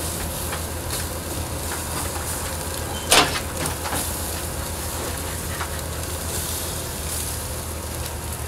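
Pork ribs sizzling on a barbecue grill grate, a steady hiss. A barbecue fork moving the racks makes a sharp clank on the grate about three seconds in, with a few lighter clicks around it.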